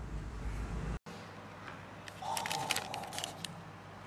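Clear plastic bag with a cloth tape measure inside being handled, crinkling with a run of sharp crackles and clicks in the second half. Before that, a low rumble of handling noise cuts off suddenly about a second in.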